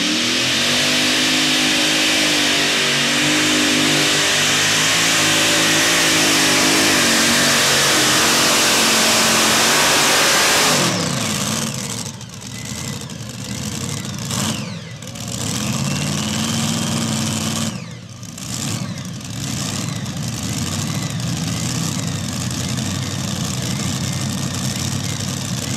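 Modified pulling tractor's two Hemi V8 engines running flat out under load for about eleven seconds. The throttle is then cut abruptly and the engines wind down in pitch, then idle with a few short revs.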